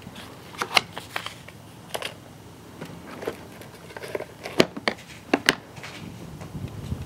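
Handling sounds of items being packed into a hard plastic pistol case and the lid being shut: a scatter of light plastic clicks and knocks, the sharpest bunched a little past halfway.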